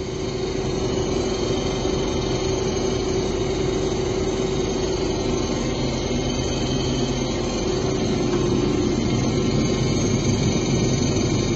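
Combine harvester running steadily in the corn: a continuous engine drone under a steady machine whine, fading in at the start.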